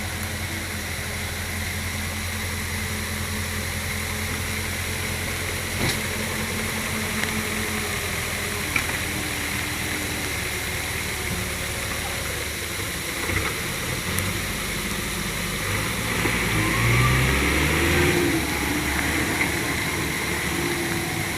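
Heavy diesel engine running steadily, with a few sharp knocks and a surge in load for a couple of seconds near the end.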